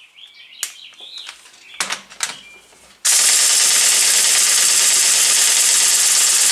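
Central Pneumatic half-inch air impact wrench hammering steadily on a wheel lug nut in reverse at its highest setting. It starts about three seconds in and is preceded by light clicks of the socket being seated on the nut. The wrench fails to break the nut loose; the owner judges it too weak for lug nuts.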